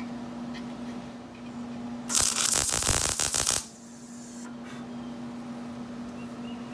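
Wire-feed welder arc crackling for about a second and a half, a single tack weld joining a steel rod to a steel bracket; it cuts off abruptly. A steady low hum runs before and after the weld.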